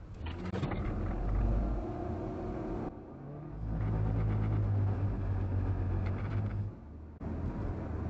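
Car engine and road noise heard from inside the car as it gathers speed from a crawl, a steady hum that dips briefly about three seconds in and again near the end.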